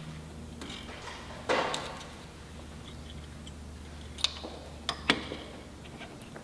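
A rustle of handling, then a few sharp small clicks about four and five seconds in, as a brazing pin is loaded into the pin holder of a BAC EasyBond pin brazing gun.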